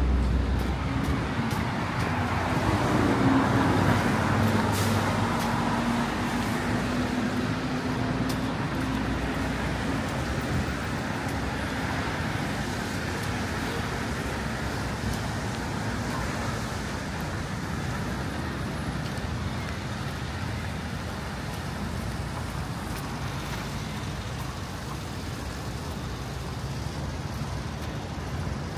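Road traffic passing on a city street, with the steady engine hum of a passing vehicle that swells a few seconds in and fades after about ten seconds.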